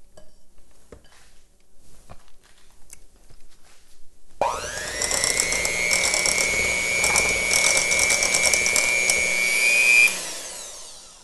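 Electric hand mixer switched on about four seconds in, its motor whining up to speed and then running steadily as the twin beaters whip buttercream frosting. About ten seconds in it is switched off and the whine falls away as it winds down.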